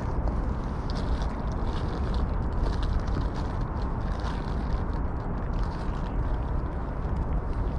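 Two cats eating from metal dishes: many small wet chewing and licking clicks over a steady low rumble.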